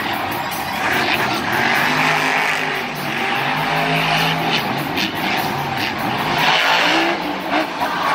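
Monster truck's supercharged V8 engine revving hard, its pitch rising and falling, over the steady noise of a stadium crowd.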